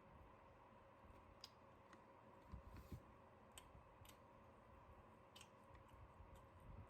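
Near silence with a faint steady hum and a few scattered faint clicks.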